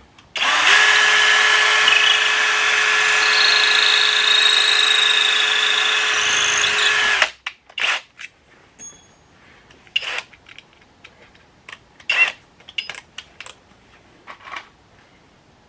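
Power drill running at a steady speed for about seven seconds, then stopping abruptly, as the next masonry screw's hole is drilled or the screw is driven into the concrete block wall. Several light clicks and knocks follow.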